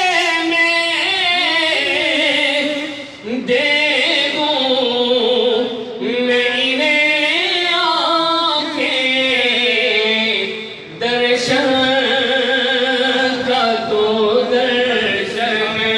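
A man singing a naat, Urdu devotional poetry, in long ornamented held lines that glide up and down in pitch, with short breaks about three and eleven seconds in.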